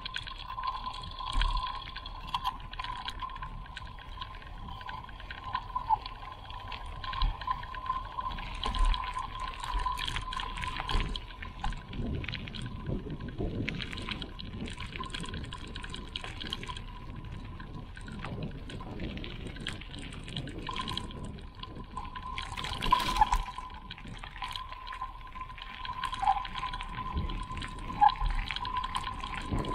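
Running water of a small creek trickling and gurgling steadily, with many small irregular splashes and a louder burst about 23 seconds in.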